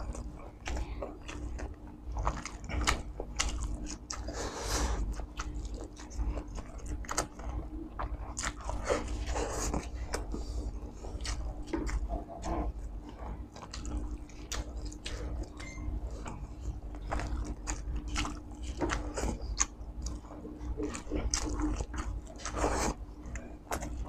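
Close-miked chewing and wet lip smacks of spicy chicken isaw (chicken intestines) and rice eaten by hand, with many small sticky mouth clicks. A faint steady hum runs underneath.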